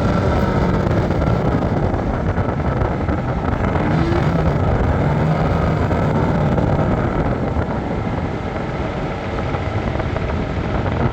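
A vehicle engine running steadily while under way, with wind on the microphone; its pitch rises briefly about four seconds in.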